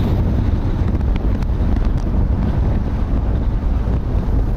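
Wind buffeting the microphone of a camera on a moving car: a loud, steady rumble.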